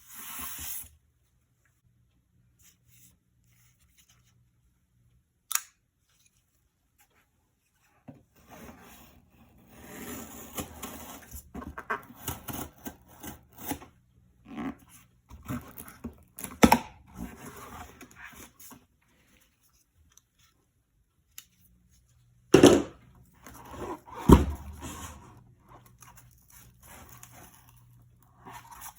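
Packaging being handled during an unboxing: irregular rustling and tearing, a single sharp click, and two loud knocks close together near the end.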